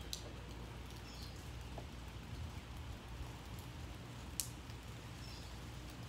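Light rain ambience over a steady low rumble, with scattered ticks of falling drops (the sharpest about four and a half seconds in) and a couple of faint, short bird chirps.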